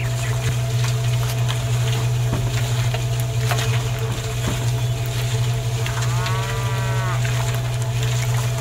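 Small electric motor running steadily, belt-driving a miniature grinding mill, with a constant low hum and scattered light clicks. About six seconds in comes a short cow moo of about a second whose pitch rises then falls.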